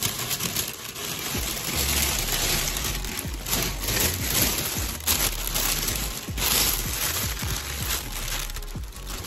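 Thin plastic shopping bag rustling and crinkling as it is handled close up, with the loudness rising and falling irregularly.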